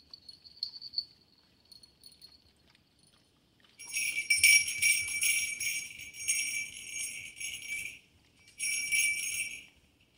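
Small brass jingle bells on a dog's collar jingling as the dog moves its head while licking another dog's face. The jingling starts about four seconds in, runs for about four seconds, pauses briefly and comes again near the end.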